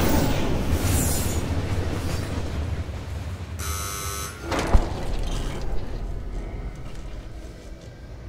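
Film sound effects: a low rumble that slowly fades, broken about halfway in by a harsh buzz lasting under a second and then a single heavy thump.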